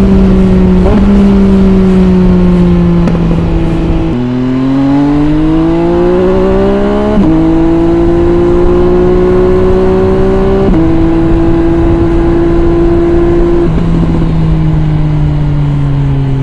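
MV Agusta Brutale 800 RR's 800 cc three-cylinder engine running through an MV Agusta Corse three-outlet exhaust with the dB killer fitted, heard from on the bike. It holds mostly steady revs, with sudden drops in pitch at upshifts, the biggest about four seconds in. After that drop the revs climb under acceleration for about three seconds.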